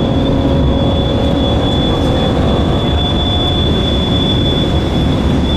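2014 Cadillac CTS twin-turbo V6 running on track, heard from inside the cabin along with dense road and wind noise, and a thin, steady high whine throughout.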